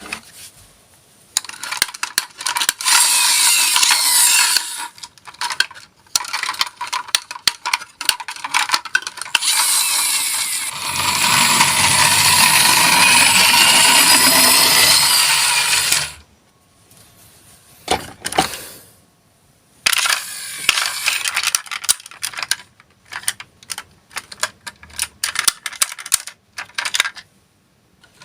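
Die-cast toy minicars clattering and rolling: many sharp metallic clicks and rattles, with several seconds of continuous rolling noise around the middle.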